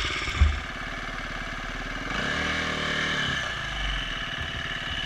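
Enduro dirt bike engine running at low revs, with a short loud thump about half a second in and a rev that rises and falls a couple of seconds in.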